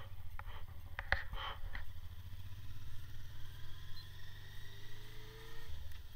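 Honda Deauville's V-twin engine running while riding, a low pulsing rumble with wind on the microphone. A few sharp clicks come about a second in, and near the end the engine note climbs for a second or so and then drops away.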